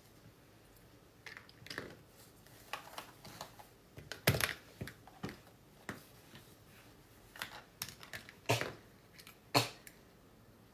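A dozen or so scattered light clicks and knocks at close range in a small room, the loudest about four seconds in.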